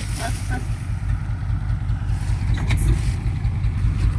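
A truck engine idling, a steady low rumble, with a few light knocks and clatters from the vehicle.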